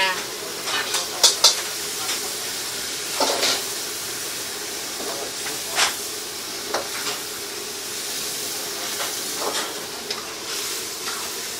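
Food sizzling in a wok over a high gas flame while a metal ladle stirs it, knocking against the wok several times.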